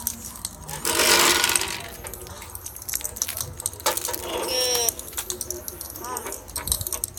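Bonfire crackling with scattered pops, with a loud rushing hiss about a second in. Voices talk in the background.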